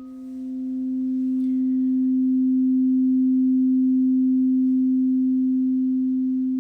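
Crystal singing bowl sounding one low, steady, pure tone that swells gradually to its loudest around the middle and then slowly eases off.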